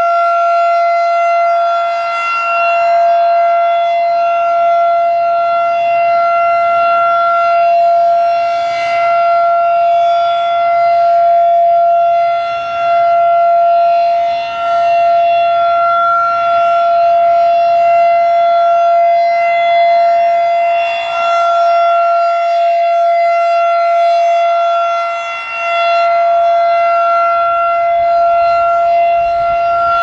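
Federal Signal 2001-DC electromechanical siren sounding a loud, steady alert tone at one pitch with overtones. The loudness swells and dips every several seconds as its rotating horn sweeps past.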